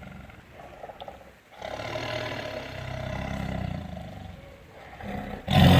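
Tiger roaring. The end of one call fades out, a long, lower call follows through the middle, and a loud new roar breaks out near the end.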